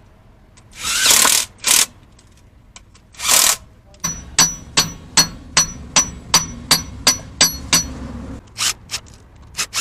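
A hammer striking steel gearbox parts, likely driving a gearbox shaft into place: two short scraping noises, then about a dozen even, ringing metal-on-metal blows at roughly two and a half a second, and a few looser taps near the end.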